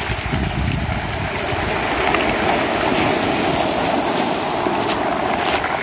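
Small waves washing up a pebble beach and foaming back through the stones in a steady wash of surf, with wind buffeting the microphone in the first second.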